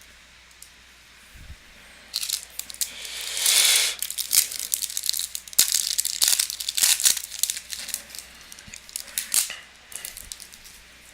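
A foil wrapper of a Topps Chrome baseball card pack being torn open and crinkled, starting about two seconds in: one long rip, then a run of sharp crackles that thins out near the end.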